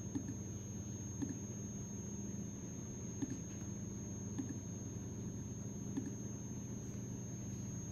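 Steady low electrical hum with a thin high whine and faint hiss, with about five faint, short clicks of a computer mouse spread through it.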